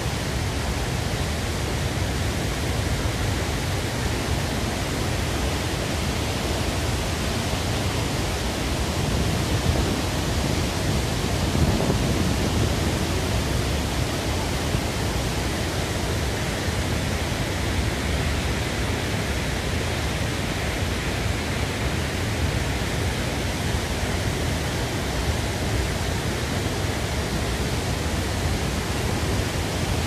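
Wide curtain waterfall in heavy flow, water pouring over a rock ledge into a churning pool: a steady, even rush with a deep low-end rumble.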